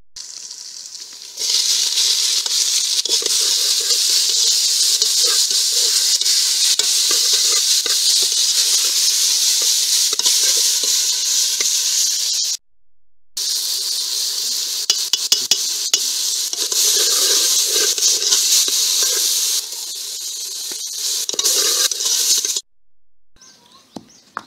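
Onions and tomatoes frying in oil in an aluminium pot, sizzling steadily, stirred with a metal ladle that clicks and scrapes against the pot. The sizzle cuts off abruptly twice.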